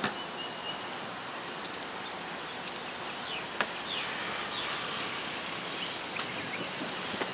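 Steady outdoor background noise with a thin high tone held for about a second and a half, a few short falling chirps and scattered clicks.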